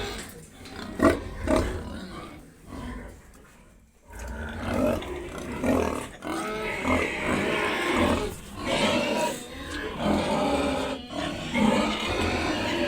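Domestic pigs grunting and squealing in repeated calls, sparse and quieter for the first few seconds, then louder and almost continuous from about four seconds in.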